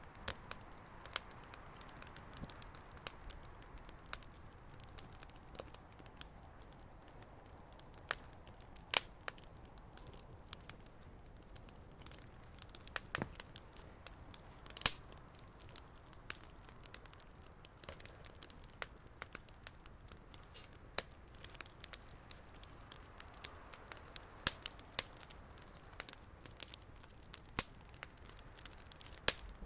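Wood fire crackling, with scattered sharp pops at irregular intervals, a few louder ones in the middle.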